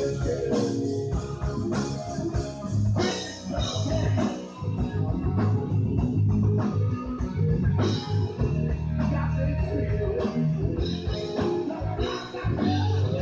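Rock band playing live: guitar over bass guitar and drum kit, an instrumental stretch with no singing.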